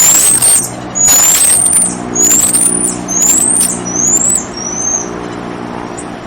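A marmoset giving a series of six high, thin whistled calls about a second apart, each rising and then dipping in pitch, the last ones shorter and fainter. A steady low hum runs beneath.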